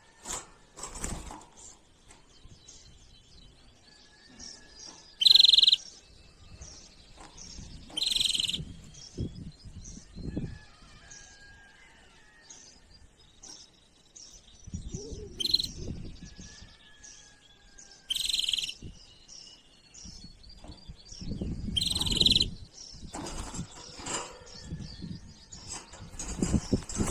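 Small birds chirping and twittering, with loud sharp chirps every few seconds among fainter trills. Several low thumping or rustling noises come in between.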